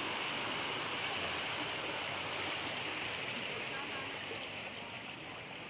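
Fast-flowing floodwater rushing and splashing, a steady hiss that eases off a little near the end.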